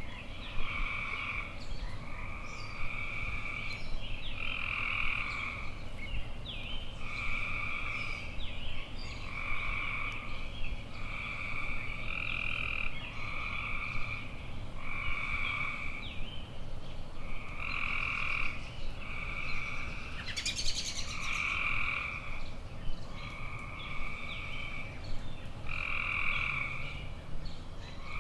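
Repeated animal calls, each about a second long, coming every one to two seconds at an even pace, with faint short chirps between them.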